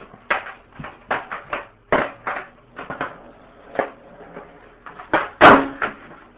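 Skateboard knocking and clacking against hard ground in a dozen or so irregular hits, with one sharp, loud clack about five and a half seconds in.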